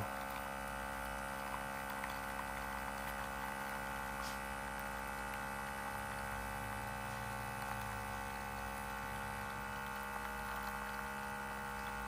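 Outin Nano portable espresso machine's electric pump running steadily mid-extraction, a continuous even hum while it pushes hot water through the ground coffee.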